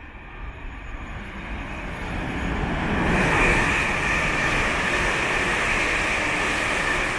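Two coupled Class 360 electric multiple units passing through the station without stopping. The rush of the train builds over the first three seconds as it draws level, with a low tone falling in pitch, then holds loud and steady.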